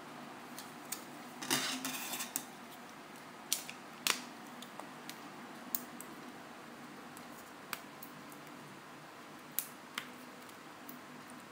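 Irregular sharp clicks and taps from an iPhone 4 being handled and its buttons pressed to test them, with a brief rustle about one and a half seconds in.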